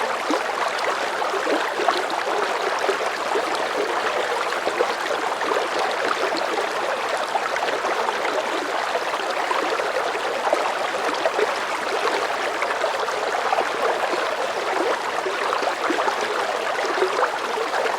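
River current of medium strength flowing steadily, a continuous rush of water with many small gurgles and splashes.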